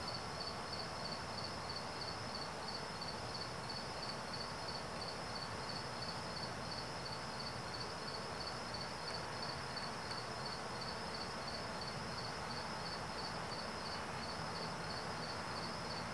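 A cricket chirping in an even, steady pulse of about three to four chirps a second, high-pitched, over a steady hiss.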